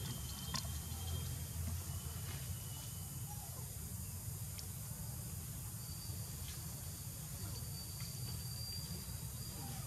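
Outdoor background noise: a steady low rumble with faint, thin high-pitched tones, one held for several seconds in the second half, and a few faint ticks.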